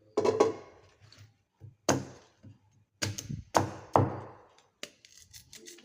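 Knife chopping on a cutting board: five sharp knocks, about a second in, near two seconds, and three in quick succession from three to four seconds, each dying away quickly.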